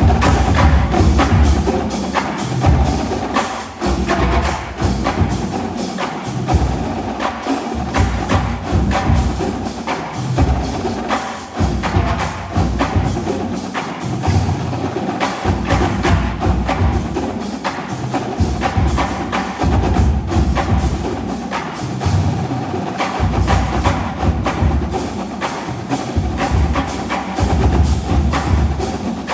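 Marching drumline playing a loud, fast percussion passage: dense rapid drum strokes over low bass-drum hits that come in short clustered runs.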